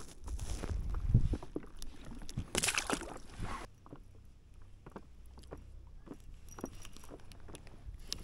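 Water sloshing and light knocks of handling on a kayak, with a louder splashing rush about two and a half seconds in that lasts about a second. After it, only faint scattered clicks remain.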